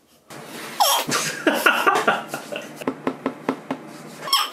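A person laughing in a quick run of short bursts, starting about a second in.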